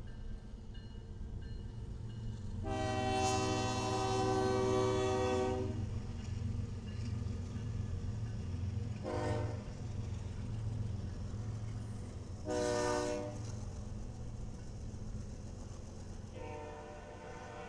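BNSF diesel freight locomotives passing with a steady low engine rumble while the lead unit sounds its horn. There is a long blast, two shorter blasts, and another long blast starting near the end.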